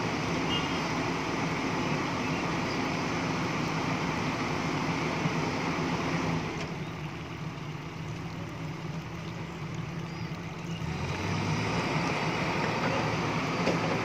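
Diesel engine of a JCB tracked excavator running as the machine works on a truck's flatbed. It is quieter for a few seconds in the middle, then picks up again.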